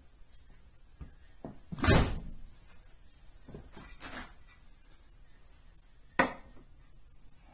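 A handful of separate knocks and thuds with quiet between: the loudest, a dull thud, about two seconds in, softer ones around three and a half and four seconds, and a sharp knock just after six seconds.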